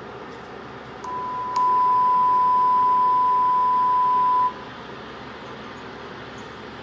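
Raspberry Pi drowsy-driving alarm sounding a single steady high-pitched beep for about three and a half seconds, growing louder shortly after it starts: the warning that the driver has been judged drowsy. A steady background noise runs under it.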